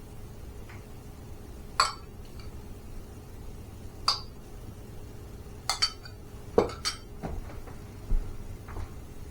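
Cutlery clinking against dishes: about seven short, sharp clinks at irregular intervals, a few close together in the middle.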